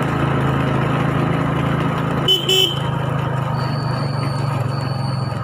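Small motorcycle engine running steadily under way, with two short horn toots about two and a half seconds in.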